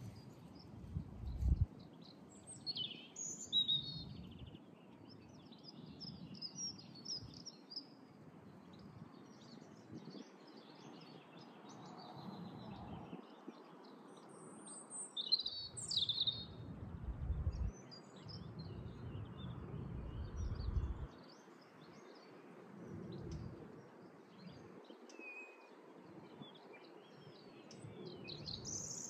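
Several songbirds chirping and trilling in quick, scattered phrases, with a low rumble coming and going underneath, strongest about a second in and again past the middle.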